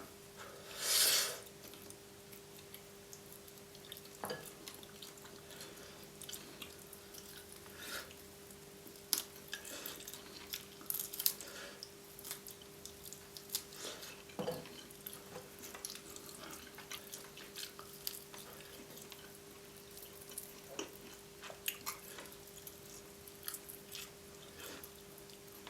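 Close-miked eating: quiet chewing of roast chicken with scattered small wet clicks and ticks from mouth and food handling, under a faint steady electrical hum. A short loud rush of breath comes about a second in.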